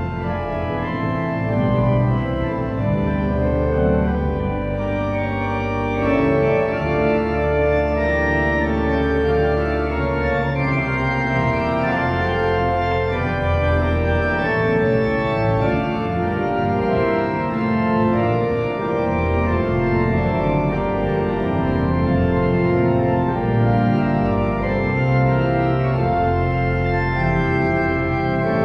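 Large Seifert church pipe organ played with full sustained chords over held pedal bass notes, the harmony changing every second or two.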